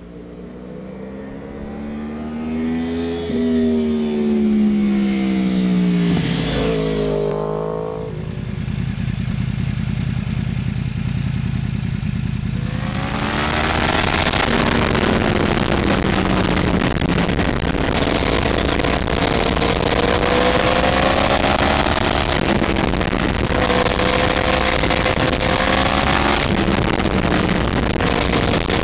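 Yamaha R1 sport bike's inline-four engine under way. The revs climb, ease off, then climb again through a series of upshifts, the pitch dropping at each shift, over a steady rushing noise.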